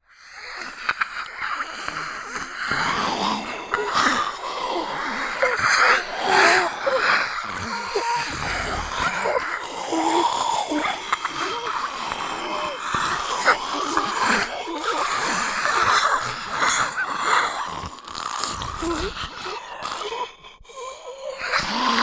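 Zombie voice sound effects: throaty, rasping groans and growls, going on almost without a break.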